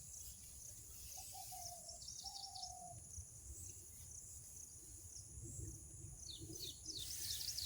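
Small birds chirping and calling in open farmland: many short high chirps that grow busier near the end, and two short, slightly falling whistles a second or two in, over a low rumble.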